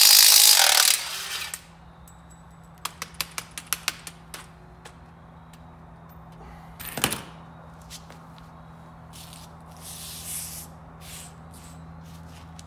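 Handheld power tool running loudly on the bolts at the engine's flywheel for about the first second and a half, then stopping. A quick run of light metal clicks follows, then a single knock and some handling noise.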